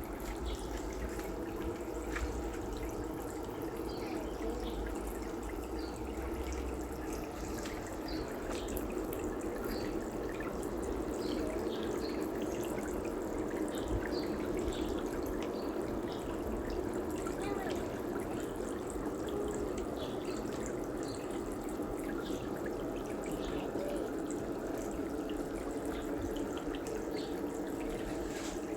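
Water trickling steadily, with small drips and ticks scattered through it.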